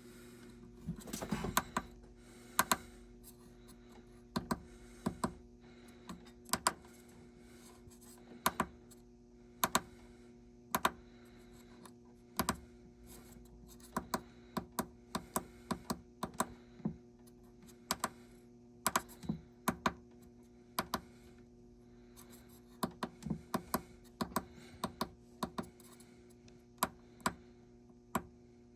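Irregular sharp clicks, singly and in short quick runs, over a steady low electrical hum.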